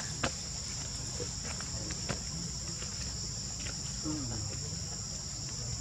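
Steady, high-pitched drone of an insect chorus, with a few faint clicks on top.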